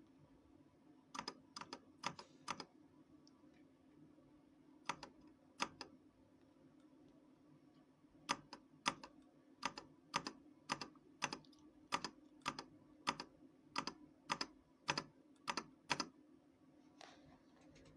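Keystrokes on an RK Royal Kludge RK61 60% mechanical keyboard. A few scattered key presses come first, then about halfway through a steady run of about two keystrokes a second. A faint low hum sits underneath.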